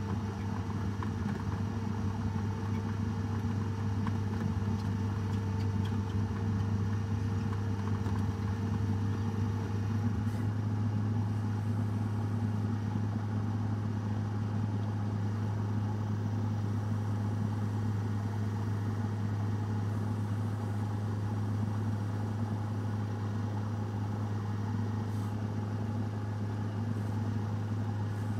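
A machine running steadily: a constant low hum that does not change in speed.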